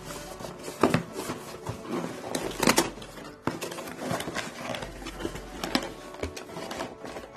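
Cardboard shipping box being handled and opened by hand: the box slides on the table and its flaps are pulled, rustling and scraping, with two louder sharp cracks, about one second in and near three seconds in.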